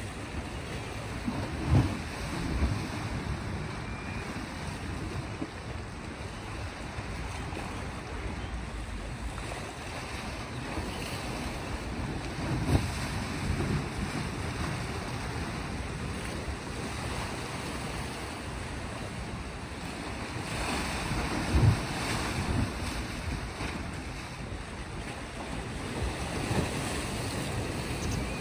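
Sea waves washing steadily against the rocky shore, with wind noise on the microphone and a few low thumps of wind buffeting.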